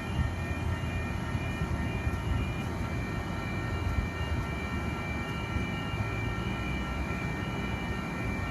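Four-car Oscar electric multiple unit pulling away from the platform: a steady rumble with several thin, steady high whining tones over it.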